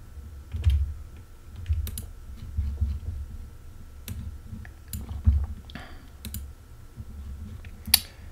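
Scattered, irregular clicks of a computer mouse over a low rumble and a faint steady high whine. The sharpest click comes near the end.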